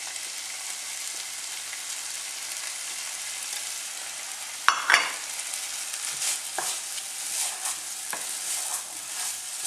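Tofu and vegetables sizzling in a frying pan of curry and coconut-milk sauce. About halfway through there is a sharp clatter, followed by a wooden spoon stirring and scraping the pan with irregular knocks.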